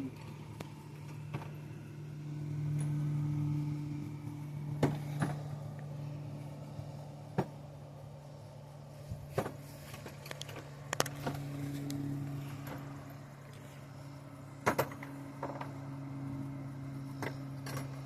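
Scattered sharp metal clinks and clicks of hand tools and sockets being handled, over a steady low hum that swells between about two and four seconds in.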